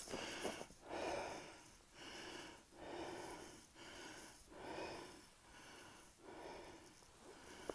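A hiker breathing heavily close to the microphone, a soft breath about once a second.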